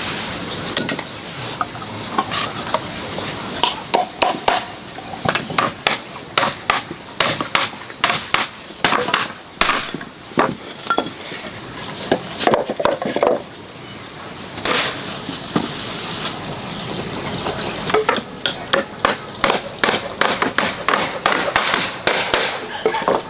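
Hand woodworking on a wooden stool: irregular knocks and taps of hand tools on wood, sometimes in quick runs, between stretches of scraping.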